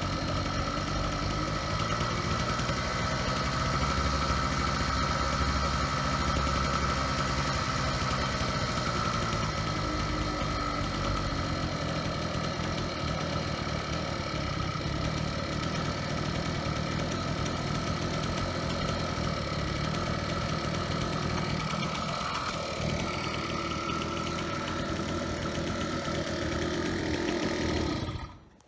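Xcooter Thunder scooter's small gas engine idling steadily, its Walbro carburetor's pilot screw freshly adjusted so that it now idles smoothly. The sound stops abruptly near the end.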